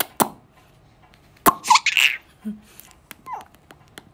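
A few sharp lip-smacking kiss sounds from a person's mouth, the loudest about a second and a half in, followed by a short breathy puff and a couple of brief squeaks.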